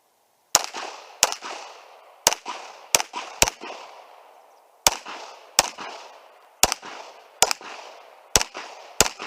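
Handgun shots fired during an IPSC stage: about eleven sharp reports, mostly under a second apart, with a longer pause near the middle. Each shot trails off in a short echo.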